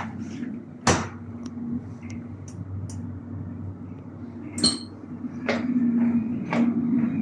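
Inside a London Underground S8 stock carriage: a steady low hum with scattered knocks and rattles. There is a sharp knock about a second in and a ringing clank about four and a half seconds in.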